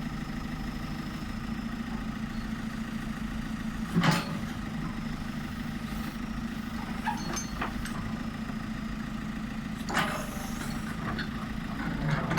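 Diesel engine of a JCB 3CX backhoe loader idling steadily, with short louder noises about four and ten seconds in.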